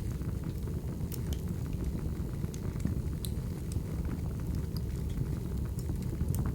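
Wood fire burning: a steady low rumble of flames with scattered sharp crackles and pops of the firewood.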